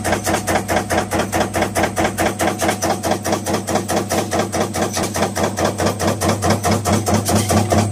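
HOWFIT MARX-80 stamping press running a deep-drawing die, striking in a fast, even rhythm of about five strokes a second over a steady low machine hum.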